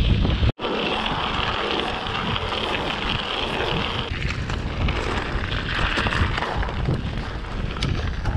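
Wind rushing over the camera microphone of a moving mountain bike, a steady low rumble with tyre noise on the road. The sound cuts out for an instant about half a second in and changes about four seconds in.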